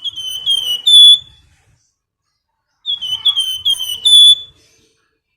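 Flamboyan songbird giving its high whistled 'nyiul' call: two phrases of about six quick, slightly falling whistled notes each, ending on a higher, longer note, the second phrase about three seconds in.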